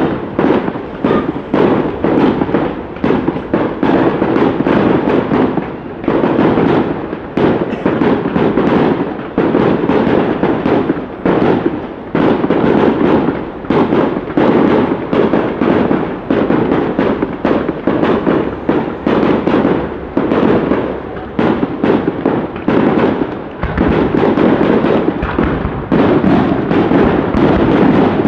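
Fireworks display: a rapid, continuous barrage of bangs, several a second, with brief lulls.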